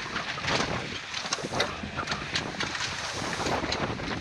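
Wind buffeting the microphone and water rushing past the hull of a heeled sailboat under way, broken by irregular sharp slaps and snaps.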